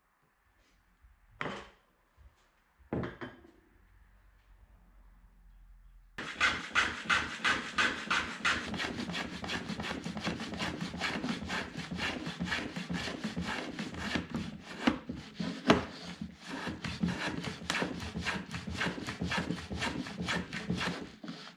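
Two light knocks, then a hand saw cutting through wood in quick, even strokes, about three or four a second.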